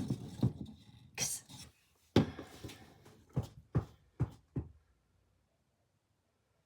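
Parts of a small display easel being handled and knocked together: a clatter of knocks, one loud knock about two seconds in, then four quick sharp taps close together.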